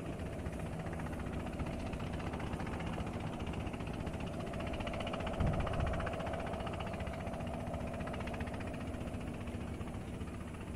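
Steady low outdoor rumble with a faint, even hum running through it, and a short low thump about five and a half seconds in.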